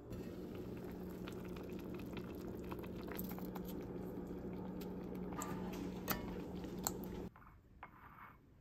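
A pot of napa cabbage, tofu and mushrooms simmering as baechu-jjim, bubbling and crackling over a steady low hum. It cuts off suddenly about seven seconds in, leaving only a few faint soft sounds.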